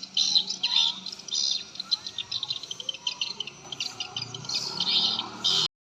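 Many swiftlets chirping, a dense chatter of rapid, high twittering calls that cuts off abruptly near the end.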